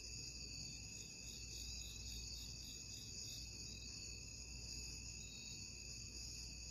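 Steady chorus of insects trilling at a high pitch without a break, with fainter pulsing chirps on top.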